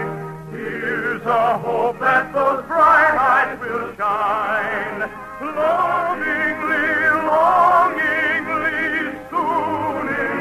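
Operetta singing with heavy vibrato over an orchestra.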